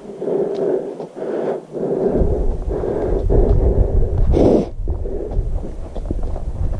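A hiker's heavy, rhythmic breathing close to the microphone, about two breaths a second, with one louder breath about four and a half seconds in. Wind buffets the microphone with a low rumble from about two seconds in.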